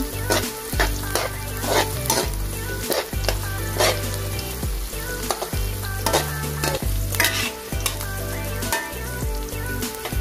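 Chopped garlic and onion sizzling in hot oil in a metal wok while a metal spoon stirs them, scraping and clinking against the pan many times. A low hum runs underneath and breaks off now and then.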